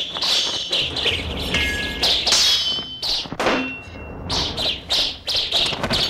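Kung-fu film sword-fight sound effects: a rapid string of short, sharp metallic clashes of blades, each with a bright ringing tail, about a dozen in quick succession, mixed with thuds.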